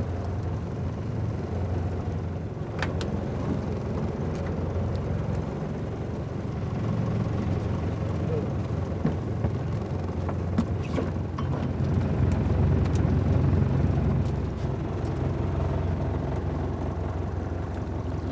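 A fishing boat's engine running steadily at low speed, growing a little louder about two-thirds of the way through, with scattered light clicks and knocks from fishing gear being handled at the rail.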